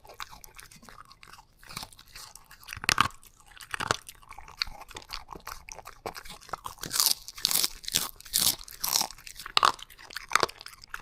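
A dog crunching and chewing dry food, freeze-dried egg-yolk treats, in irregular crunches that come faster and louder in the second half.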